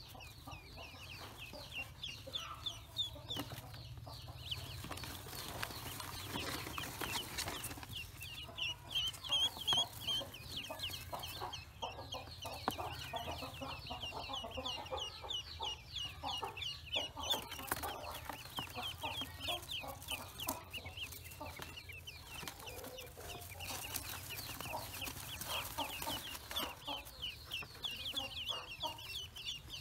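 A boxful of newly hatched ducklings peeping: many short, high peeps overlapping, several a second.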